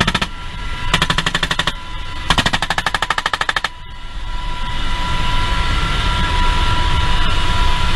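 Three bursts of rapid machine-gun fire, the last the longest at over a second, heard from inside a helicopter cockpit. After the firing stops, the steady engine and rotor noise swells.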